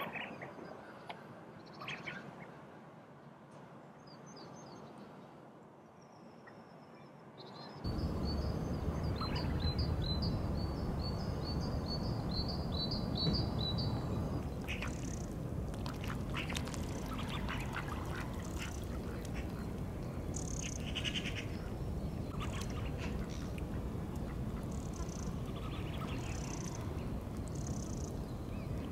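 Male tufted ducks giving their courtship calls: short, high whistling notes, repeated every second or two. About eight seconds in, a louder steady background noise sets in.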